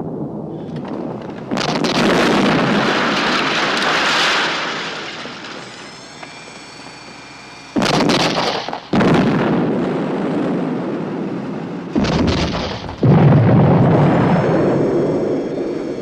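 Tank main-gun fire and explosions: five heavy blasts, each dying away in a long rumble. The first stands alone, and the other four come in two pairs about a second apart, with a faint high ringing tone between them.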